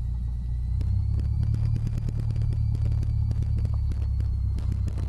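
Cessna 172's piston engine and propeller running at low taxi power, heard from inside the cockpit as a steady low drone that grows a little louder about a second in. Many small clicks and rattles run through it.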